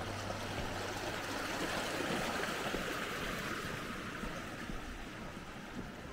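Steady rush of flowing water, like a stream, swelling a little in the middle and then slowly fading.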